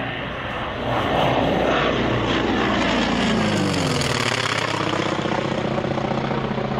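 North American T-28 Trojan's radial engine and propeller growing loud as the plane makes a low pass overhead. Its pitch drops as it goes by, about three to four seconds in, then it settles into a steady drone.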